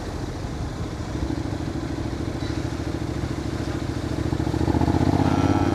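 Honda X-ADV 750's parallel-twin engine running while the scooter is ridden, getting louder about four seconds in.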